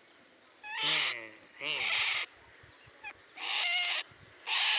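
A captive white-breasted waterhen calling: four harsh calls, each about half a second long, roughly a second or more apart.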